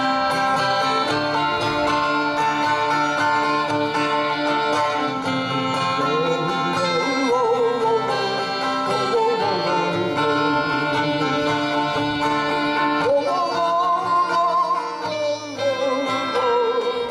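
Live music from a duo with an acoustic guitar: steady chords underneath, and a melody line with a wavering pitch that comes in about six seconds in.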